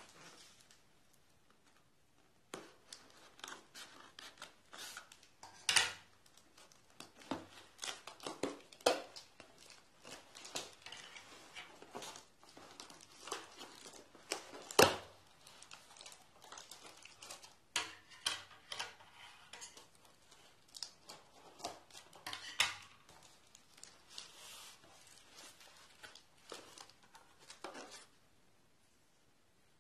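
Scissors snipping and slicing through packing tape on a cardboard box, mixed with irregular rustling, crinkling and tearing as the cardboard flaps and tape are pulled open, with a few sharp knocks.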